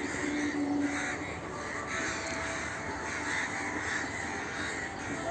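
Crows cawing over and over, the calls coming in a steady string.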